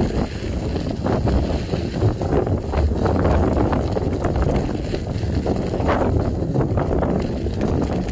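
Wind rumbling on the microphone of a moving bicycle, with tyres crunching over gravel and many small knocks and rattles from the bumps.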